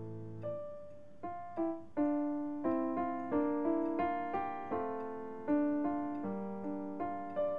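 Gentle solo piano music: an unhurried melody of single notes, about two a second, over held lower notes, each note struck and left to fade.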